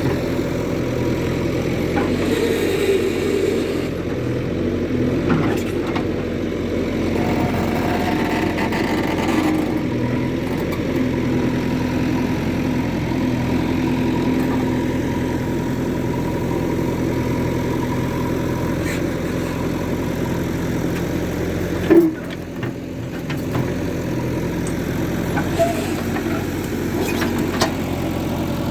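Heavy diesel engine running steadily at a low, even speed. A single sharp knock stands out about three-quarters of the way through, followed by a brief dip in the engine sound.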